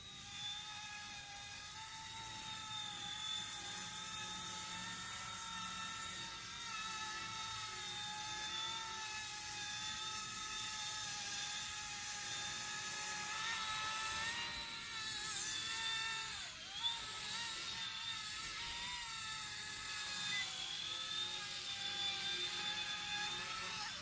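Small RC toy helicopter's electric motor and rotors running with a high whine, the pitch wavering as the throttle shifts. There is a brief dip in pitch about two-thirds of the way through.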